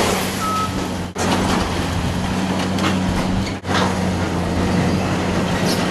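Caterpillar tracked excavator's diesel engine running steadily under load while it tears into the building, with the crunch and clatter of breaking roof debris. A brief high squeal comes about half a second in, and the sound cuts out for an instant twice.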